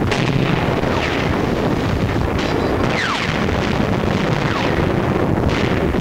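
A battle sound track of continuous gunfire and explosions, with several high whistles that fall in pitch.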